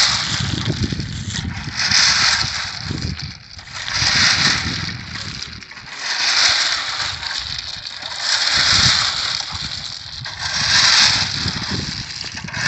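Railway ballast stones being scraped and drawn in by hand with a modified phawra (spade-hoe), a stroke of shifting stone about every two seconds, six times.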